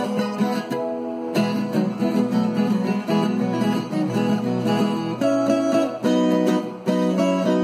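Background music played on acoustic guitar, with held chords that change every second or so.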